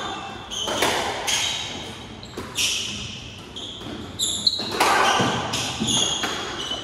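Squash rally: the ball cracks off rackets and the court walls every second or so, each hit echoing in the court, with short high squeaks of court shoes on the wooden floor.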